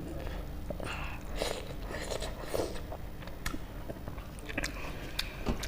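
Close-miked eating: a person chewing mouthfuls of food, with wet mouth smacks and sharp clicks scattered irregularly.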